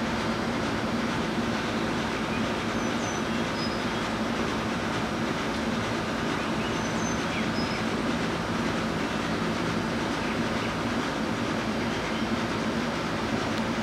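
Steady mechanical drone with a constant low hum that does not change, and a few faint, short high bird chirps about three and seven seconds in.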